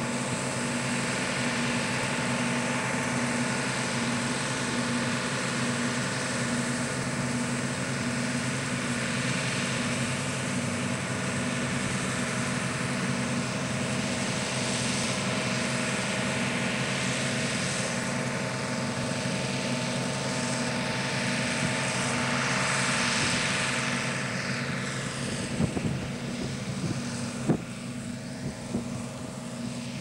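Deutz-Fahr M35.70 combine harvester running steadily with its unloading auger engaged, a constant engine and machinery drone. It drops a little in level in the last few seconds, with a few short knocks near the end.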